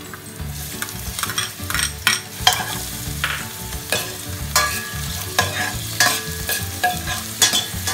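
Sliced onions and garlic sizzling in hot oil in a stainless steel pot as they are sautéed. A metal ladle stirs them, scraping and clinking against the pot again and again.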